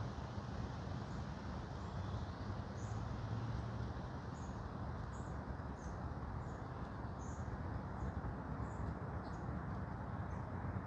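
Forest ambience: a steady low rushing noise, with a small bird's short, very high chirps scattered irregularly over it.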